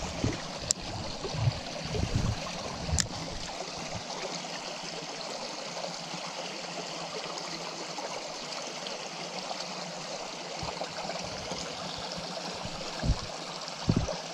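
Small mountain stream running steadily over rocks. Two sharp clicks come in the first few seconds, and a few low bumps at the start and near the end.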